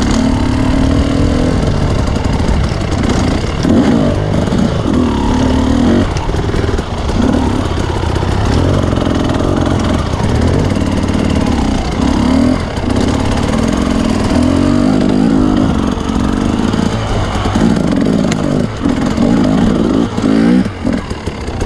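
Dirt bike engine ridden hard, revving up and down over and over as the throttle is worked.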